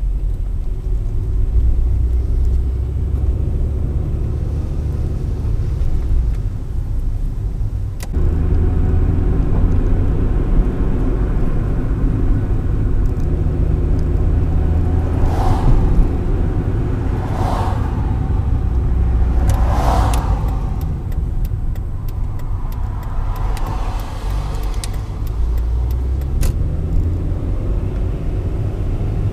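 Car driving, its engine and road noise a steady low rumble heard from inside the cabin through a dashcam. There are three brief whooshes about halfway through and a softer one a few seconds later.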